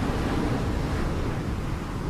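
Surf washing onto a beach, a swell of noise that builds just before and eases off near the end, with wind rumbling on the microphone.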